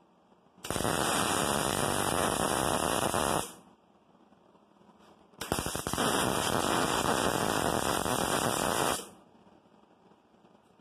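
Wire-feed (MIG) welder laying two stitch welds on thin sheet steel: a steady crackling arc for about three seconds, a short pause, then a second weld for about three and a half seconds.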